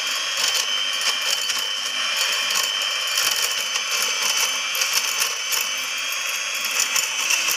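Electric hand mixer running unloaded, a steady motor whine over a rapid rattling of clicks as its two beaters knock against each other. This clashing is the sign of worn drive gears inside.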